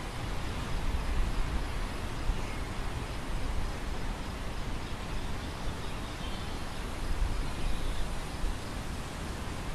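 Wind blowing across an open grain field: a steady rustling hiss, with a low rumble of wind buffeting the microphone that swells in gusts. Faint high chirps come through about halfway.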